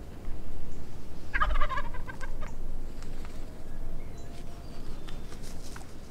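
A wild turkey gobbler gobbling once, a rapid rattling call lasting about a second, starting about a second in.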